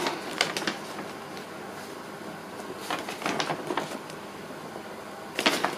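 Large paper park map rustling and crackling as it is opened out and handled: a few soft crackles soon after the start, more about three seconds in, and a louder patch near the end.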